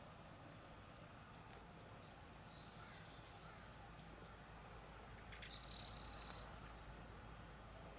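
Small birds chirping faintly in short high calls, with a louder call about five and a half seconds in, over a quiet background hum.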